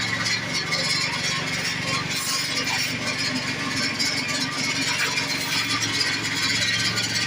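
A steady low hum from running machinery with an even hiss above it.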